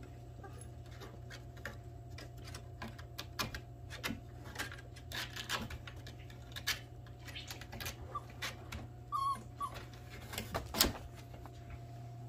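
Four-week-old puppy scrambling up and over a wooden pen board, with a run of light scratches and taps, a brief high whimper about nine seconds in, and a sharper knock near the end.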